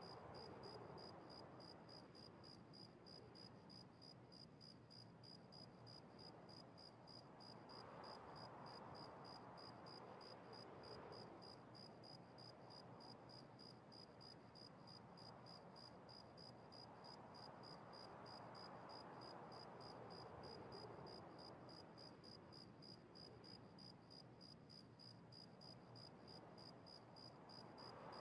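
Near silence: faint room hiss with a faint, even, rapid high-pitched pulsing.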